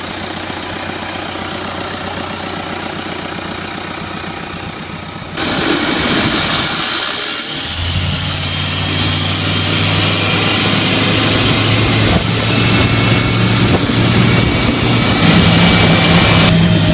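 Turbocharged Hyundai Seasall U125S marine diesel engine running, heard close up in the open engine bay. About five seconds in, the sound jumps suddenly louder and hissier, and a couple of seconds later the engine settles into a strong, steady hum.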